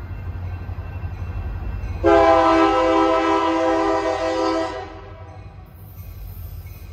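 Union Pacific diesel locomotive's air horn sounding one long blast, a chord of several steady notes, from about two seconds in until nearly five seconds, over a low rumble.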